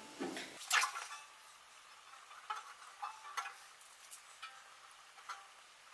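Faint, scattered clicks and rustles of adhesive paper label strips being peeled off their sheet and pressed onto a cello's fingerboard, loudest about a second in.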